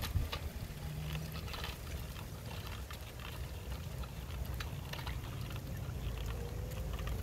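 Small children's bike with plastic training wheels rolling along a concrete sidewalk, giving irregular clicks and rattles over a low rumble.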